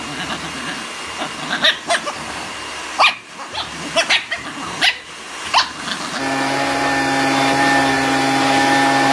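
A dog barking in a handful of short, sharp yips spread over several seconds. About six seconds in, a steady, level hum starts and holds.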